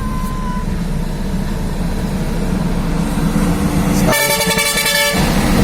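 Logging truck engine running steadily, with a single horn blast lasting about a second near the end.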